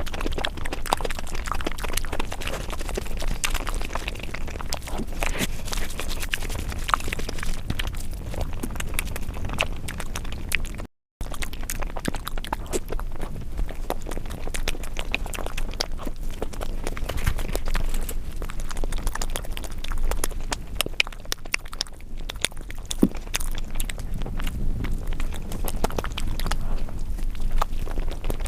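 Close-miked chewing and wet mouth sounds of eating spicy egg curry: a dense run of small clicks and smacks, cut off by a brief silent gap about eleven seconds in.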